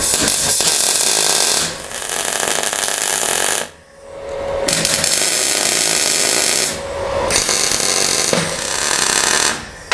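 MIG welder arc crackling and hissing in several bursts of one to two seconds, with short breaks between them. Steel sheet is being tack- and spot-welded: a bracket is being fixed to the truck cab.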